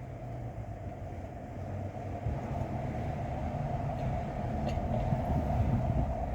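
Wind gusting against the microphone: a low, buffeting rumble that grows stronger from about two seconds in, over a steady hum.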